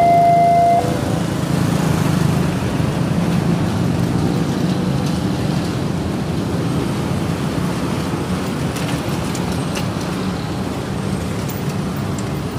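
A railway level-crossing warning alarm sounds its alternating two-tone signal and cuts off about a second in, as the crossing clears. A steady low rumble of road traffic follows.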